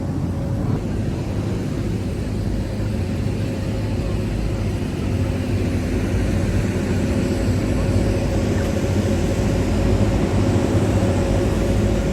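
Aircraft engine noise: a steady low rumble, with a faint steady hum joining about five seconds in.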